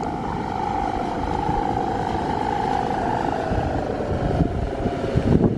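Balinese kite hummer (guangan) droning a single steady tone that sags slightly in pitch, over wind buffeting the microphone. A few knocks near the end.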